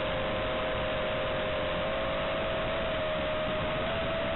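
Racing quadcopter's brushless motors whining, two close steady tones wavering slightly in pitch with the throttle, under a steady hiss.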